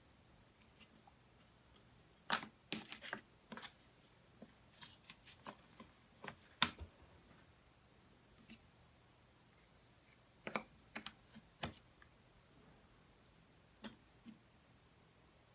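Jigsaw puzzle pieces being handled and set down: scattered light clicks and taps in small clusters, the busiest about two to four seconds in, again around five to seven, and around ten to twelve.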